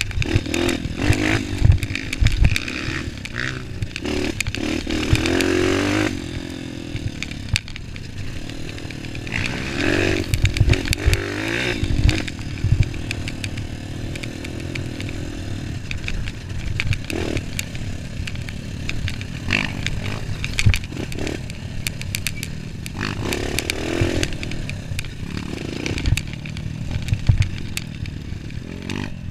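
Honda CRF230 dirt bike's single-cylinder four-stroke engine revving up and falling back over and over as it rides a rough dirt trail, with frequent knocks and rattles from the bike jolting over bumps and stones.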